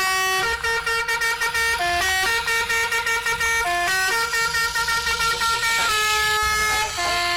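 A tune played in loud, sustained horn-like tones that step from note to note, each held from a fraction of a second to nearly two seconds, over quick ticking.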